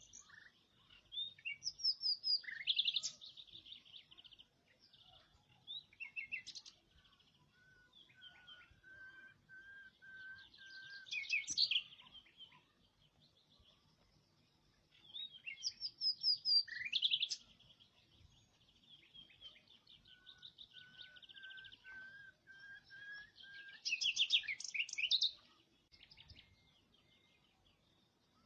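A songbird singing: four phrases of fast high trills and chirps, two of them joined to a long steady whistled note, with short pauses between phrases.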